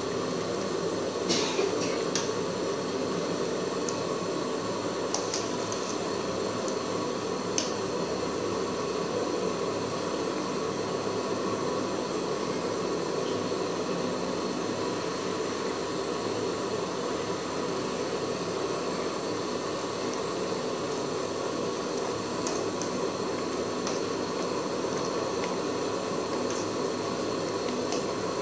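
Soup boiling hard in a pot, a steady bubbling, with a few light clicks of a ladle against the pot in the first several seconds.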